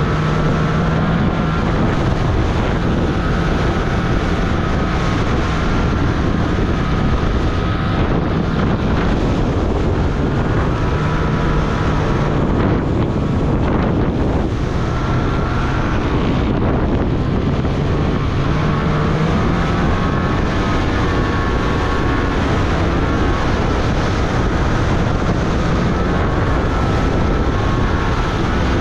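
A 2023 Polaris RMK Pro 850's two-stroke snowmobile engine running hard on a climb, its pitch rising and falling with the throttle, with wind noise on the microphone.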